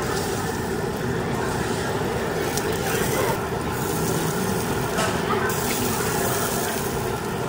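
Steady hiss and hum of a tabletop yakiniku gas grill and its downdraft extraction, with slices of beef sizzling on the wire grate.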